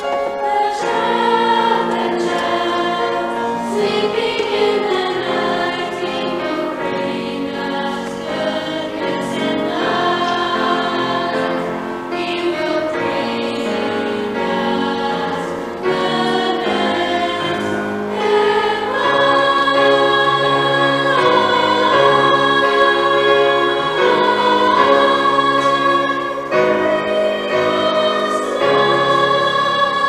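Mixed choir of children and adults singing Christmas music in sustained chords, growing louder about two-thirds of the way through.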